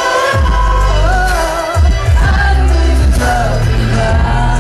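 Pop song with a heavy bass beat and a voice singing into a handheld microphone over it: karaoke-style live singing to a backing track.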